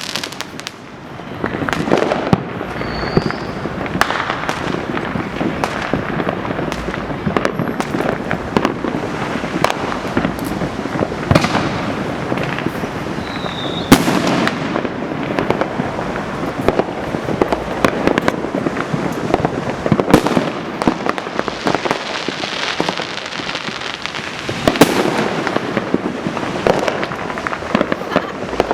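Many fireworks going off at once, a continuous din of overlapping booms and crackling. Sharper single bangs stand out every second or two, the loudest about fourteen seconds in.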